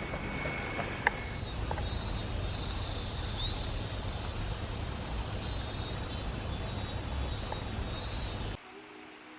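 Steady high-pitched insect buzz over a low rumble of outdoor ambience, with one sharp click about a second in. It cuts off suddenly near the end, and faint music follows.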